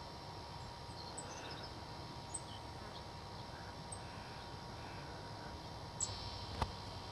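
Scattered short, high bird chirps and chip notes over steady outdoor background noise, with a sharp click about six and a half seconds in.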